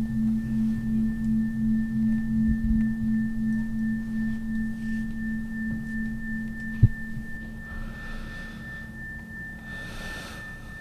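Electronic drone from the score: low sustained tones with a thin steady high tone above, pulsing gently and slowly fading. A single sharp click comes about seven seconds in.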